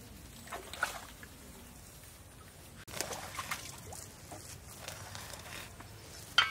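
Water trickling and sloshing with a few short handling sounds, and a sharp click near the end.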